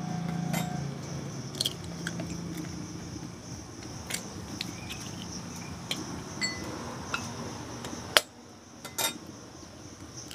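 Eggs tapped against the edge of a metal spatula and their shells cracked and pulled apart: scattered sharp taps and cracks, the loudest about eight seconds in. A steady high insect buzz runs underneath.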